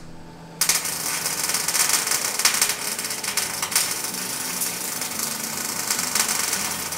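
MIG welder arc crackling steadily as a seam is welded along a steel car body panel. It starts abruptly about half a second in.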